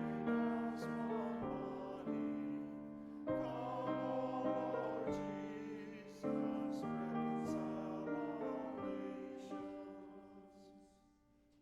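Church keyboard music playing held chords, with a new chord every second or two. The piece winds down and fades away near the end.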